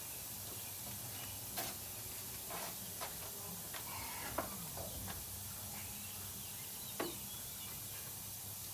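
Scattered light clicks and knocks of a garden hose and outboard flushing muffs being handled and taken apart, over a steady low hum.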